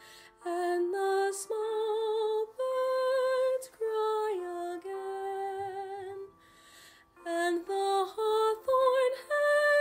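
A woman's voice singing a slow melody, with vibrato on the held notes and a short pause about six seconds in.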